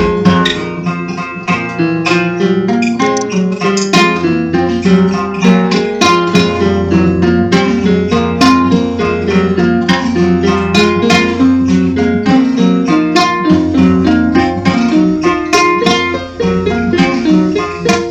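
Music: acoustic guitar picked in a steady run of notes over a low sustained bass.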